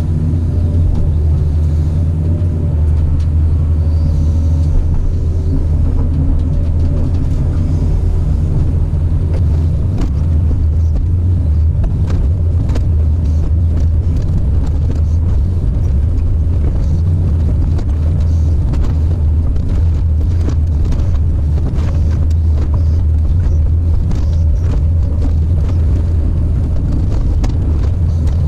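Caterpillar 973C track loader's diesel engine running steadily at working revs, a deep, even rumble, with scattered clicks and knocks from about ten seconds in.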